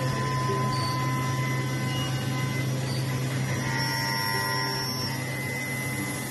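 Multi-spindle CNC woodworking machine for drilling, milling and tenoning, running with a steady low hum and faint whining tones above it.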